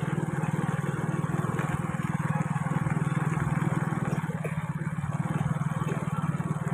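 Small motorbike engine running steadily at cruising speed, a low even drone with a haze of road noise over it.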